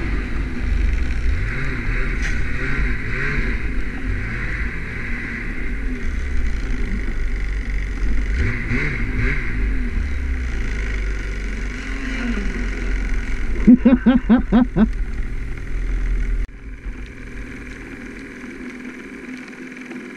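Ski-doo snowmobile engine running under way, its pitch rising and falling with the throttle. About fourteen seconds in comes a quick run of short, loud pulses, then the engine sound drops sharply and fades out near the end as the sled comes to a stop.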